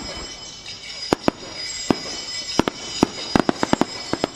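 Aerial firework shells bursting in red rings and crackling stars: more than a dozen sharp bangs at irregular spacing, coming faster and closer together after about three seconds.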